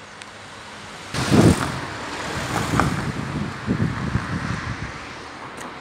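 A road vehicle passing close by on a street: a sudden loud rush of engine and tyre noise about a second in that fades over the next few seconds.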